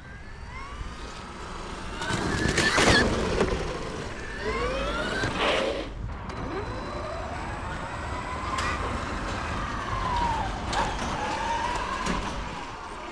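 Traxxas XRT RC truck's brushless electric motor and drivetrain whining, rising and falling in pitch several times as the truck speeds up and slows. There is a louder rushing swoosh about three seconds in and one long slow rise and fall later. The truck is running in limp mode, its thermal protection having kicked in after snow packed the chassis.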